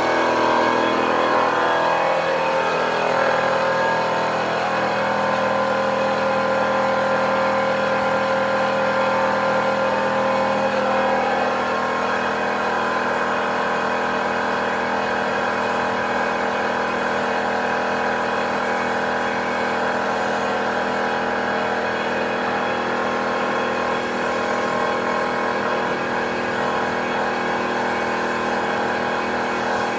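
Air compressor motor for duco spray-lacquer work running steadily with a constant hum, its pitch wavering a little during the first ten seconds before settling.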